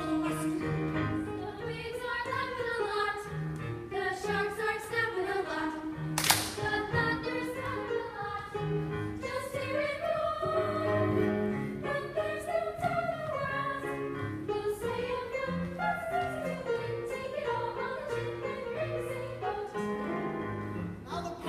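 A group of voices singing together over musical accompaniment, in a stage musical number; a single sharp click cuts through about six seconds in.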